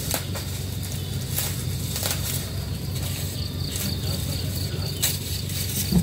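Ambulance engine idling with a steady low hum while the vehicle stands still, under a continuous pulsing chirp of insects and a few faint clicks.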